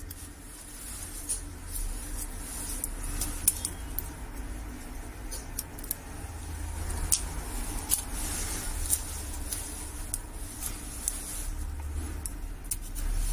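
Hands handling and peeling a stretch-release battery adhesive strip and its plastic backing film: light rustling of the film with scattered sharp little ticks.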